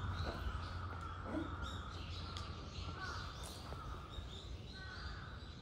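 Birds calling: short, repeated calls that come mostly in the second half, over a steady low hum.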